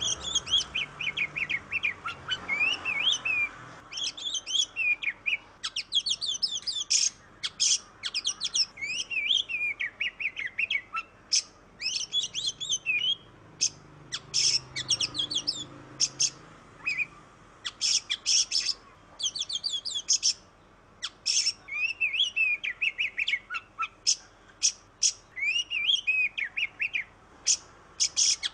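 Oriental magpie-robin (kacer) singing: a long run of rapid, varied whistled and chattering phrases with short pauses between them.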